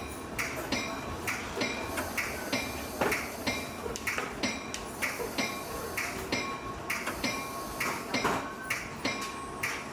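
Metallic clinks and ticks rattling irregularly, two or three a second, each ringing briefly, over the low rumble of a moving commuter train's interior.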